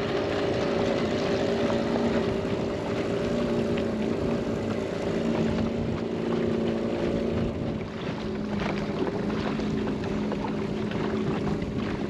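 Small outboard motor pushing a dinghy along at a steady speed, with wind and water noise; it eases off briefly about eight seconds in.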